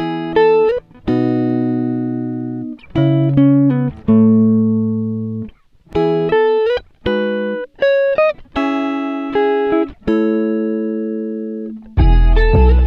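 Background music: slow guitar notes and chords, each struck and left to ring for a second or two. A fuller band sound with heavy bass comes in near the end.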